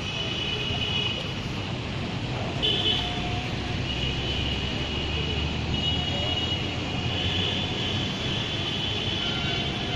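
Road traffic: a steady low rumble of passing vehicles, with vehicle horns sounding several times, some held for a second or more.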